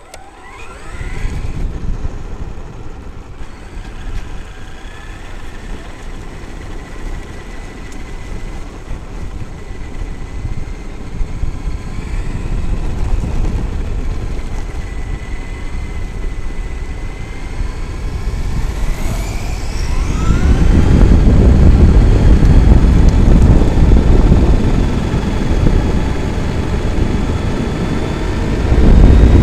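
Traxxas X-Maxx RC monster truck's brushless electric motor and drivetrain whining under acceleration, heard from a camera mounted on the truck, over heavy low rumbling noise. The whine rises in pitch at the start and again about two-thirds of the way through, and after that the rumble grows much louder as the truck goes faster.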